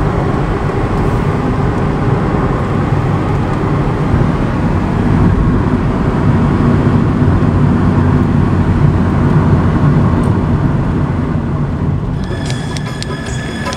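Steady road and engine noise inside a moving car's cabin at highway speed. About twelve seconds in it gives way to music fading in.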